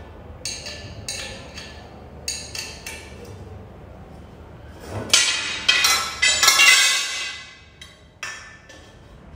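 Metal tubes and fittings of a garment rack clinking and knocking as they are pushed together by hand, with a louder scraping for about two seconds just past the middle.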